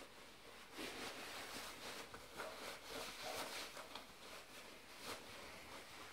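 Fabric of Splav Gorka 4 overtrousers rustling as they are pulled up and the waistband is adjusted, a run of irregular soft swishes.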